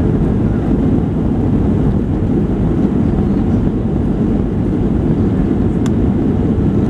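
Cabin noise inside a Boeing 737-700 heard from a window seat: a steady, loud, low rumble of engines and airflow, with a faint click about six seconds in.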